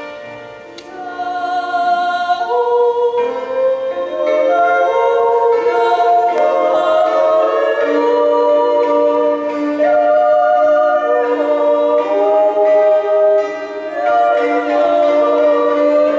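Two women singing a Swiss yodel duet in two-part harmony, holding long notes, with a Hackbrett (Swiss hammered dulcimer) accompanying. The voices come in about a second or two in and pause briefly near the end.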